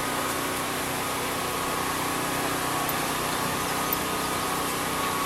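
A steady engine drone with a constant whine, with a small click about four seconds in.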